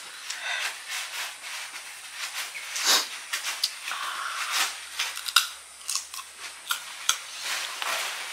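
Close-miked biting and chewing of a crisp peeled ambarella (kedondong) fruit: a string of sharp crunching clicks, the loudest bite about three seconds in.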